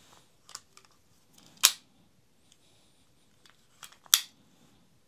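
A DELI DL006Z folding utility knife being folded and opened: two sharp clicks of the blade lock snapping, about two and a half seconds apart, with a few faint ticks of handling in between.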